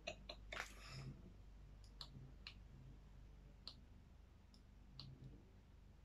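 Faint small clicks, about half a dozen, coming singly and irregularly a second or so apart, over a low steady hum.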